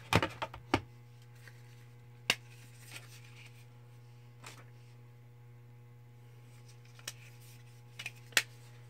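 Scattered sharp clicks and taps of plastic makeup compacts being handled and set down, several in the first second and then sparse, over a steady low electrical hum.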